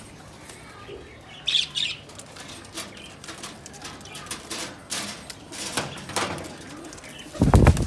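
Shirazi pigeons flapping their wings in and around a wire cage as it is being opened, with light rattles and clicks of the cage. A loud, deep thump comes near the end.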